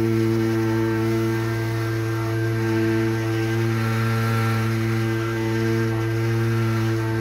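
Backpack power duster's two-stroke engine running steadily at high throttle, with the blower driving fertilizer granules out through the long spreading hose.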